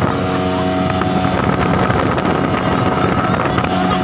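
Speedboat outboard motor running steadily under way, with the rush of water and wind over the boat.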